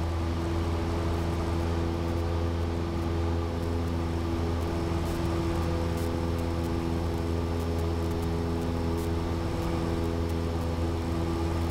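Cessna 172's piston engine and propeller running at full takeoff power through the takeoff roll and lift-off, heard inside the cabin: a steady, even drone with several held tones.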